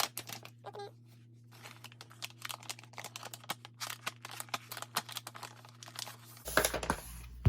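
Plastic packaging bag crinkling and crackling as it is handled and opened, in quick irregular crackles.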